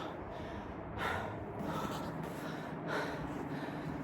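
A hiker breathing hard after climbing a steep slope, with a couple of loud breaths about two seconds apart.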